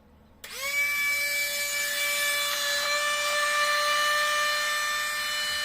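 Wall-climbing toy car's small suction fan starting up about half a second in, its whine rising briefly and then running steady over a rush of air, holding the car to the ceiling.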